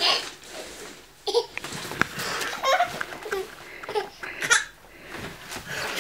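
A baby laughing in short bursts, with the rustle of a newspaper being handled and a sharp paper click about two seconds in.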